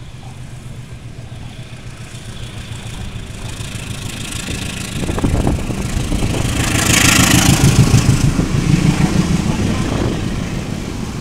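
Diesel locomotive hauling a container freight train passing close by, its engine rumble building to a peak about seven seconds in as it goes underneath, then the container wagons rolling over the rails.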